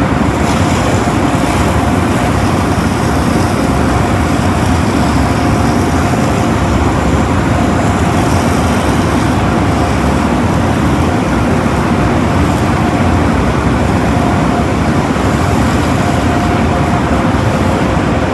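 Automatic car wash equipment running: a loud, steady rush of noise with a faint constant hum under it.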